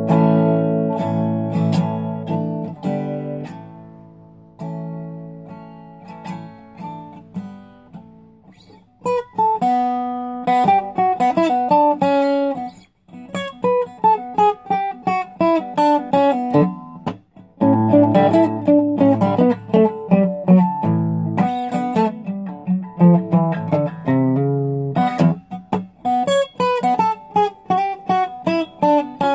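Solo acoustic guitar: ringing strummed chords that fade away over the first several seconds, then a picked single-note melody line mixed with chords from about nine seconds in.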